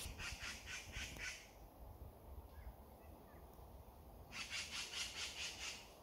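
Magpies chattering in harsh rattling bursts, one short run at the start and a longer one from about two-thirds of the way through: alarm calls from birds agitated over a nest nearby.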